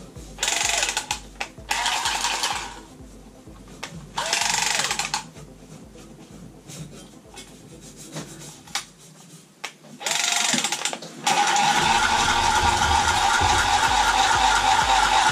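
Cordless copper tubing cutter running on copper pipe: four short spurts, each starting with a brief rising whine, then a steady run from about eleven seconds in as it cuts through the pipe.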